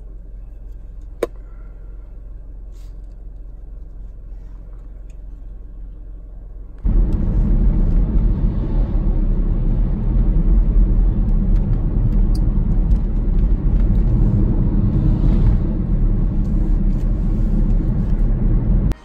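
Car interior: a steady low engine hum, with a single sharp click about a second in. About seven seconds in it jumps to much louder road and engine noise of the car under way, a dense, steady low rumble.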